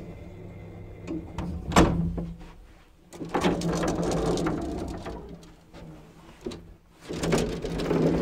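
1930s Keighley traction lift running with a steady low hum, a sharp clunk about two seconds in, then the metal rattle and slide of the car's collapsible lattice gate, twice.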